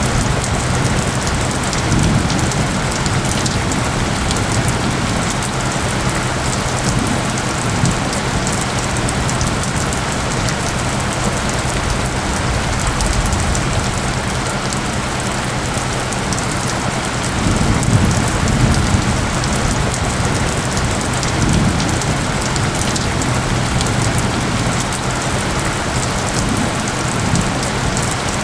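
Steady rain pattering, with low steady tones humming underneath from an isochronic-tone track. A low rumble swells a couple of times, about two seconds in and again past the middle.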